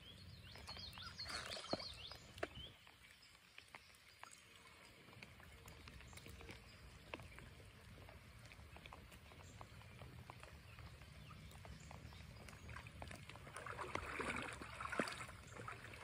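Faint creek water sloshing around a wading angler, with louder splashes about a second in and again near the end as a small hooked fish is brought out of the water, over scattered light ticks of raindrops.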